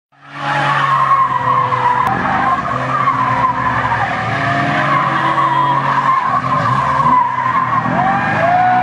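Small hatchback doing donuts: tyres squealing continuously with a wavering pitch over the engine held at high revs. The sound fades in within the first half second.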